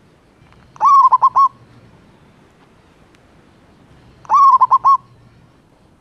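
Male zebra dove (perkutut) singing two phrases, about three and a half seconds apart. Each phrase is a rising first coo followed by a quick run of four short, stuttering coos.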